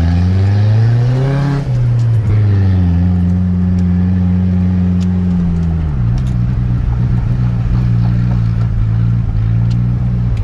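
1996 Ford Ranger 2.3 L four-cylinder engine running, its revs rising and falling at first, then holding steady and dropping to a lower steady speed about six seconds in. It is the noise traced to a failed PCV valve, which the owners take for a vacuum leak causing a high idle.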